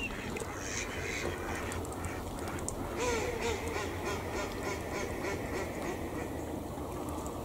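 Mallard ducks quacking repeatedly, the calls busiest about three seconds in, over a steady low rumble.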